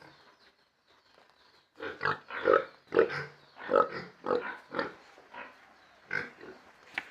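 Domestic pigs grunting. After a quiet start there is a quick run of about ten short grunts from about two seconds in, then a few scattered ones near the end.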